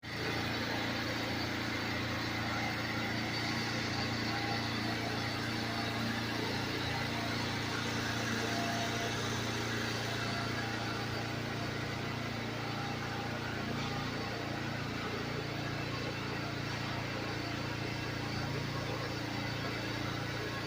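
Pressure-washing equipment running steadily, a constant motor hum with a hiss of spray as soap is sprayed.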